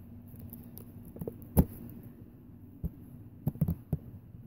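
A few sharp taps and clicks from handling an action figure's cardboard and plastic box, one single knock, a lone tap, then a quick cluster of three or four near the end, over a faint low hum.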